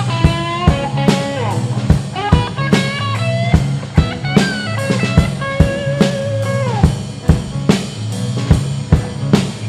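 Live blues band playing an instrumental passage: an electric guitar plays lead lines with bent notes over a steady drum beat with snare and rimshot hits and a bass line.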